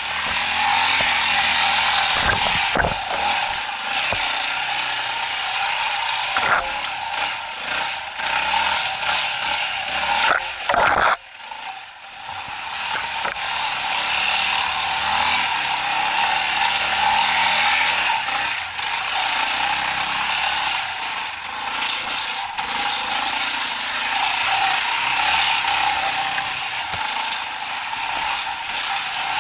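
Off-road motorcycle's single-cylinder engine running at low revs with a mechanical clatter as the bike crawls over rough, steep ground. The revs change in steps, and the sound drops away sharply about eleven seconds in before picking up again.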